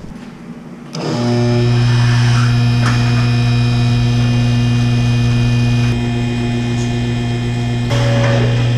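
Electric hydraulic pump motor of a four-post vehicle lift, starting up about a second in and running with a steady hum as it raises a pickup truck.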